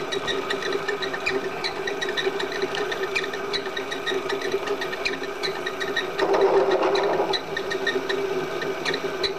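Milling machine spindle running steadily with a steady hum, an end mill cutting slowly down into the bore of a Clausing lathe apron, with faint irregular ticks. About six seconds in the cutting grows louder and harsher for about a second, then settles back.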